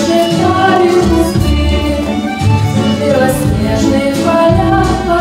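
A woman singing a Soviet wartime song into a microphone, with instrumental accompaniment and a steady bass line underneath.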